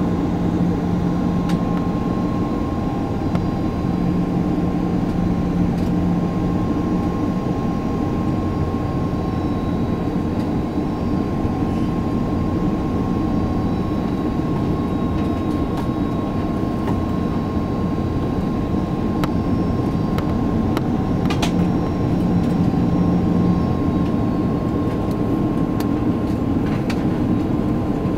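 Airbus A330-300 cabin noise in flight: the steady roar of engines and airflow, with a constant hum and a thin steady whine.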